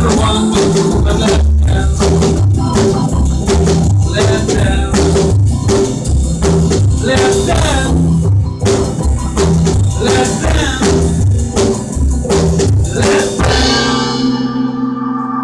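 Live band with drum kit and keyboard playing an up-tempo dance number, the drums keeping a steady beat. About thirteen and a half seconds in the beat stops and the band holds a final chord, the close of the song.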